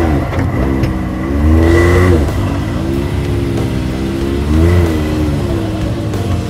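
Side-by-side UTV engine running under throttle, its pitch rising and falling as it revs up and eases off, with louder surges at the start, about two seconds in and near five seconds.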